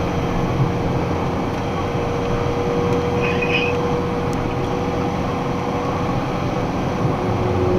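Truck cab interior at highway speed: a steady drone of engine and road noise with a thin, even whine.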